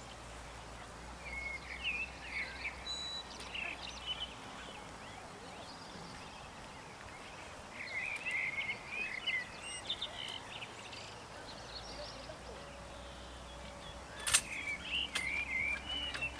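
Birds chirping and twittering in three spells, with a faint low hum at times. A single sharp click about fourteen seconds in is the loudest sound.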